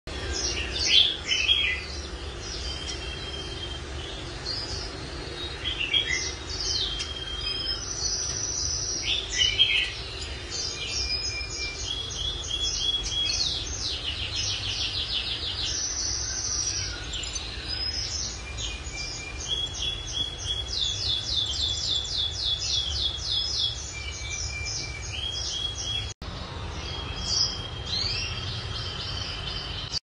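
Finch song: a long run of high chirps, clear whistled notes and fast buzzy trills, with phrases repeated, over a low steady hum.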